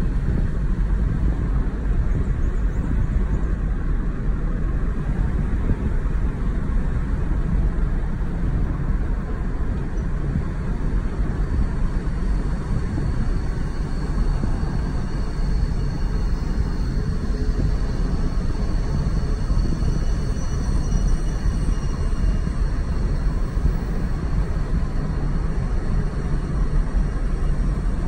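Steady rumble of a Mazda car cruising, with road, tyre and engine noise heard from inside the cabin.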